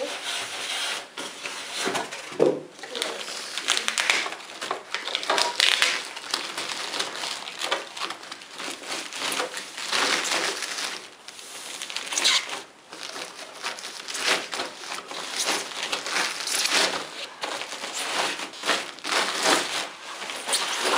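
Plastic packaging bag crinkling and rustling as it is handled and pulled off a computer monitor, with polystyrene packing pieces knocked about.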